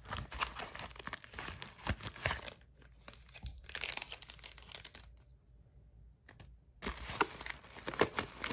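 Packaging being handled and torn open: irregular crinkling and tearing, with a quiet pause of about a second and a half just past the middle.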